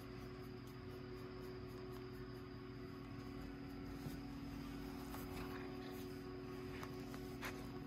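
A steady low electrical hum, with a few faint short scuffs and clicks in the second half as the cat grapples with a hand and arm.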